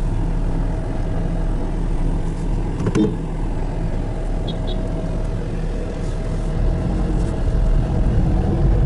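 Road and engine noise inside a moving car's cabin: a steady low rumble, with a single brief knock about three seconds in.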